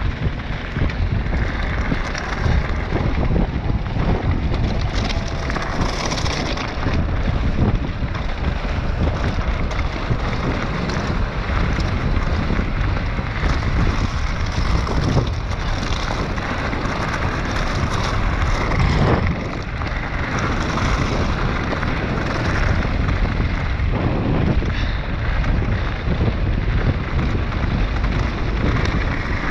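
Wind buffeting the microphone of a mountain biker's point-of-view camera, over the rumble and crunch of bike tyres running fast over loose scree and gravel.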